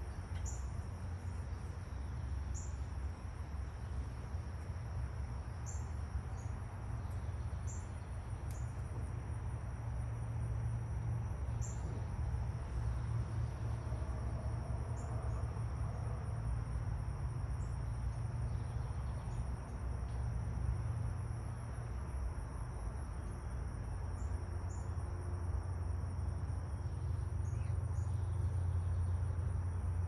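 Insects trilling steadily in two high unbroken tones, with scattered short high chirps, over a low steady rumble.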